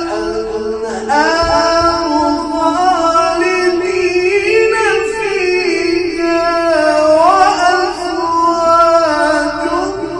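A male reciter chanting the Quran in the melodic tajweed style, drawing out long ornamented phrases whose pitch rises and falls.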